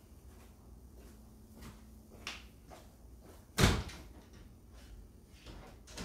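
A few soft footsteps, then about three and a half seconds in a loud clunk as a glass-paned French door is unlatched and pulled open.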